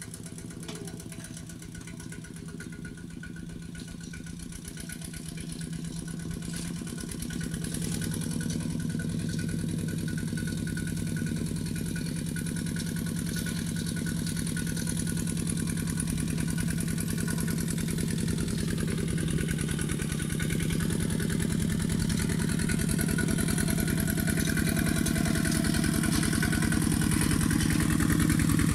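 Kubota two-wheel walking tractor's single-cylinder diesel engine running steadily under load while pulling a tillage implement, getting louder about a quarter of the way in and again toward the end.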